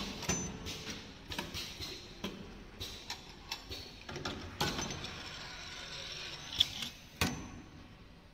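Pneumatic stuffed grape leaf rolling machine running: an uneven series of mechanical clicks and knocks from its actuators and rotary table, with a stretch of hiss in the middle and two sharp clacks near the end.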